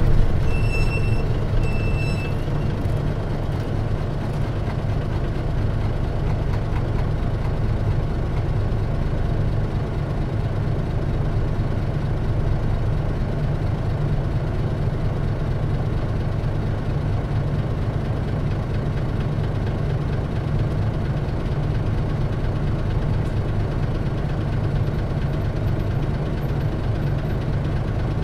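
Diesel engine of a 1997 Mitsubishi Fuso Aero Star KC-MP717P city bus running at a steady low note with no change in revs, heard from inside the passenger cabin. Two short high beeps come about one and two seconds in.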